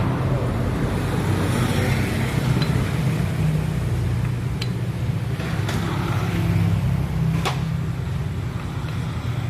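A steady low engine hum running in the background, with a few short light clicks of metal parts being handled.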